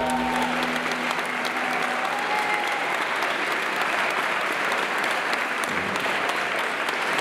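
Audience applauding steadily as the last notes of dance music die away in the first second or so.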